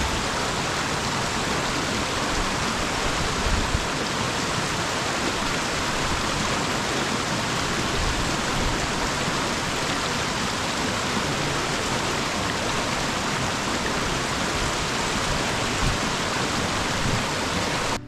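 Rushing whitewater, a loud steady hiss of fast-falling mountain water.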